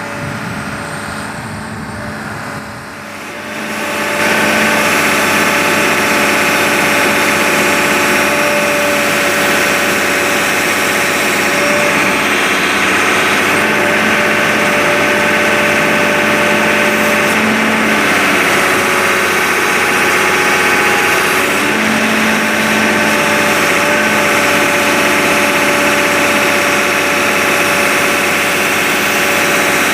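Sumitomo S280 hydraulic excavator's diesel engine running with a steady whine. It grows louder about three to four seconds in, then holds steady.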